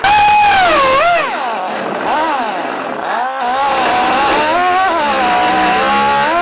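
Cutoff wheel trimming a sheet-steel patch panel. It starts abruptly, and its high whine sags in pitch and climbs back again several times as the wheel bites into the metal and eases off.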